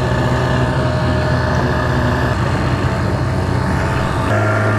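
Evinrude outboard motor running steadily, pushing a jon boat along. A little past four seconds in, its note shifts slightly.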